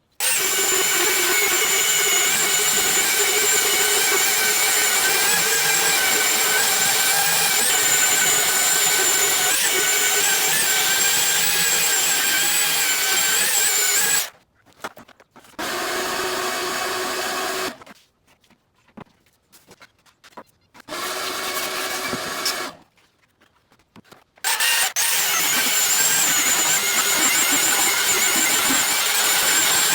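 Electric power tool motor running steadily with a high whine. It cuts out about halfway through and comes back twice in short runs with near-silent gaps between, then runs steadily again to the end.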